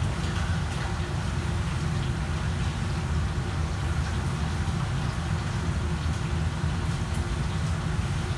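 Steady low rumble with a faint hiss over it, holding even throughout with no distinct events.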